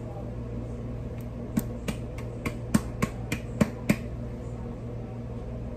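About ten sharp slaps of a palm on the bottom of an upturned tin can, roughly three a second, knocking thick sweetened condensed milk out of the can.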